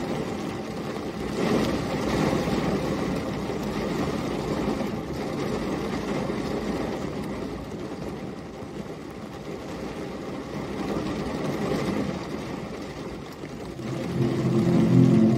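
Steady rain noise with a motor vehicle's engine hum underneath; a louder engine comes in near the end.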